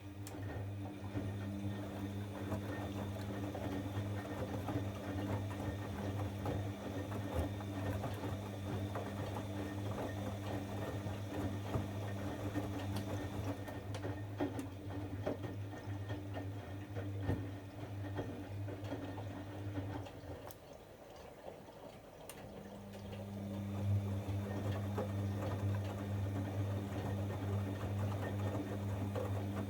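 Bosch Avantixx 7 washing machine running a wash: a steady motor hum with water sloshing inside. The hum stops about twenty seconds in and starts again two seconds later, the pause of a drum changing direction.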